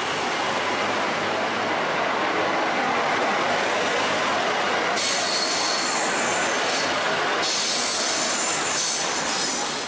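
Stainless-steel passenger carriages rolling past at close range, a steady rush of wheel and rail noise with a thin, high wheel squeal held over it. About five seconds in, a second, lower squeal joins and fades out a couple of seconds later.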